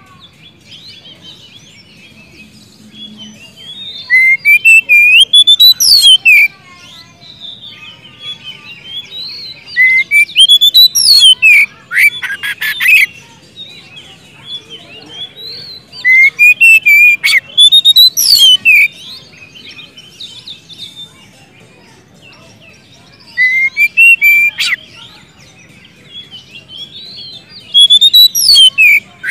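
Oriental magpie-robin singing loudly in about five phrases with short pauses between. Each phrase runs through rising whistled notes into a fast, rattling burst of sharp clicky notes. This is the loud, open 'ngeplong' singing of a bird in full song (gacor).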